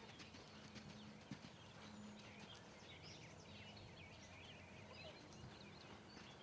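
Faint hoofbeats of a loose horse moving on sand arena footing, heard over a very quiet background.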